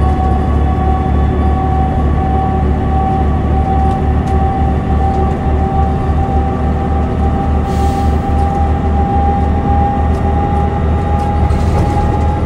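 2005 New Flyer D40LF transit bus with its Cummins ISL 8.9 L turbocharged inline-six diesel and Voith DIWA automatic transmission, running steadily: a deep drone with a clear whine on top that slowly rises in pitch.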